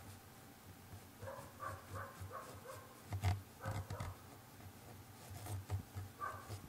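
A dog barking in the distance in a run of short, quick barks, with a pause and then single barks later on. A couple of soft knocks come about three and four seconds in.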